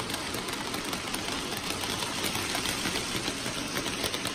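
Hornby OO scale model locomotive running along the track with its wagons: a steady mechanical whirr and rattle with fine ticking.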